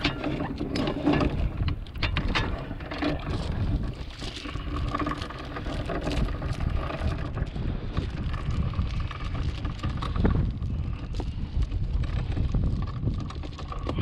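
Anchor chain rattling out over a sailboat's bow after the anchor is let go, the clanking thickest in the first few seconds, with wind buffeting the microphone.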